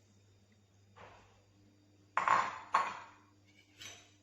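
Kitchen dishes being handled on a counter: four separate knocks and clinks, with the two loudest a little over two seconds in and about half a second apart.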